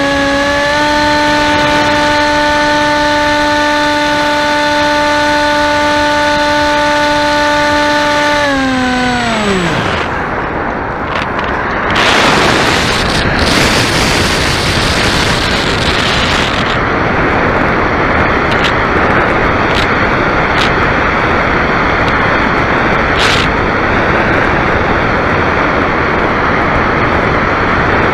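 Model airplane's motor and propeller running at a steady high pitch, then winding down and stopping about nine seconds in. After that, loud wind rushing over the airframe as the plane dives and glides without power, with a few sharp clicks.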